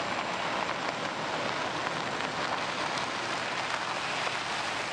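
Toyota Hilux pickup driving on a dirt road: a steady rushing hiss of tyres on loose dirt, with no clear engine note.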